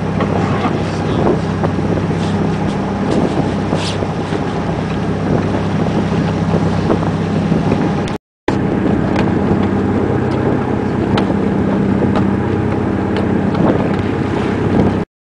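A boat engine running steadily, with wind on the microphone and scattered light clicks and knocks from the deck and rigging. The sound cuts out briefly twice, near the middle and at the end.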